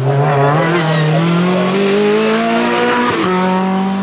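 Hill-climb race car accelerating out of a hairpin, its engine note climbing steadily, then dropping abruptly about three seconds in at an upshift before it pulls on up the hill.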